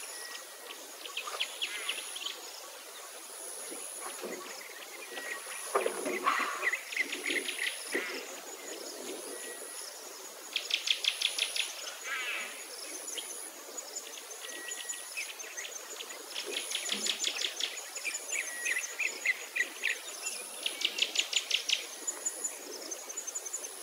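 Birds chirping and insects trilling, with a thin high insect tone pulsing on and off about once a second and bursts of fast, louder trills.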